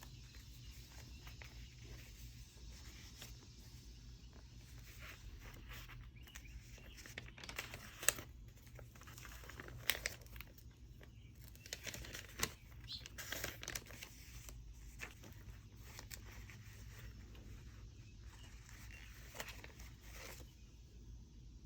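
Faint paper rustling and crinkling as the pages and tucked-in papers of a handmade junk journal are turned and handled, with a few sharper page flicks and taps in the middle, over a low steady hum.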